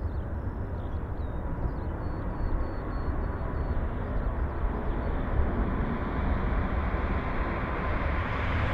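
Boeing 787-9 jet airliner on its take-off roll, its engines at take-off thrust: a steady deep rumble growing louder, with a thin high whine coming up near the end.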